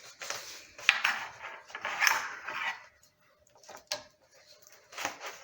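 Nylon window-screen mesh being handled and spread over a screen frame: rustling and crinkling for the first few seconds with a sharp tap about a second in, then a few scattered clicks.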